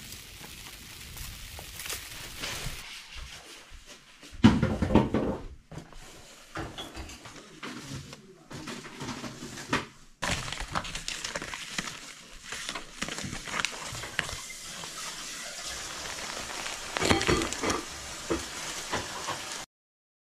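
Steady rain hiss at first, then rustling and crinkling as a meal-kit box is unpacked: a paper leaflet handled and plastic soup pouches crinkling, with scattered knocks and a loud knock about four and a half seconds in.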